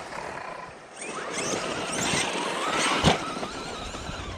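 Electric RC car's motor whining as it speeds up, over the rush of tyres on dirt, with one sharp knock about three seconds in.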